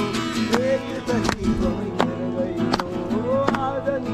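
Background music: a song with a steady beat, its melody carried by a singing voice over sustained accompaniment.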